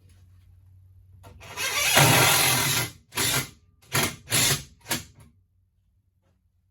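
Power drill driving a screw into a wooden table frame: one long run of about a second, then four short trigger bursts as the screw is seated.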